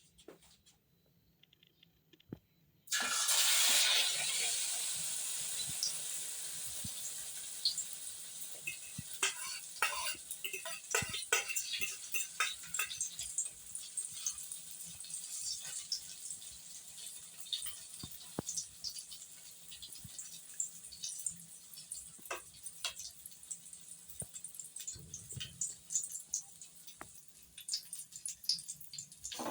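Eggplant omelette starting to sizzle in hot oil in a frying pan: the sizzle starts suddenly about three seconds in, loudest at first, then settles to a steady sizzle with many crackling pops.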